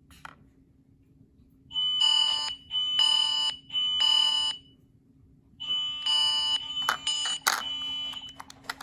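Ring Alarm system siren sounding the fire alarm pattern, set off by the keypad's fire panic button. It gives three long, high-pitched beeps, a pause, then three more, with a couple of clicks during the second round.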